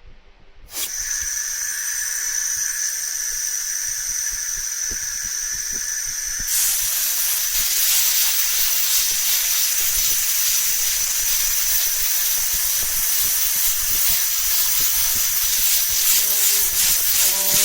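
Steady hiss of pressurised gas spraying from a nozzle, with a thin high whistle. It starts suddenly just under a second in and grows louder and fuller about six and a half seconds in.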